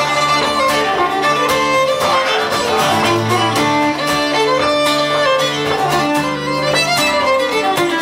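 Fiddle playing a folk tune over a rhythmic accompaniment, in an instrumental break of the song.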